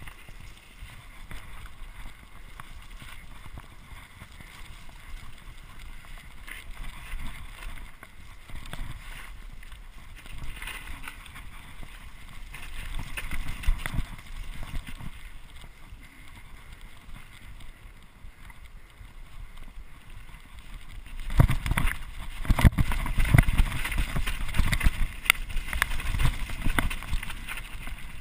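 Mountain bike riding fast down a wet, muddy trail: a steady rush of wind on the microphone and tyres on wet dirt, with the bike clattering and knocking over bumps. About three-quarters of the way through it gets much louder and rougher, with a run of sharp knocks.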